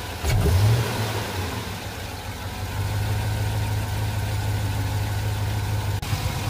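Chevrolet Tahoe PPV's 5.3 V8, fitted with a stage 2 cam and a Magnaflow exhaust, idling with a short rev just after the start, then settling back to a steady idle.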